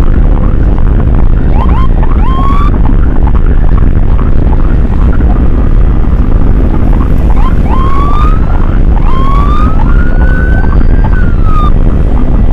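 An emergency siren whoops in short rising yelps about two seconds in and again around eight seconds, then gives one longer rise that holds and drops near the end. Under it runs loud, steady wind and engine noise from a motorcycle riding at speed.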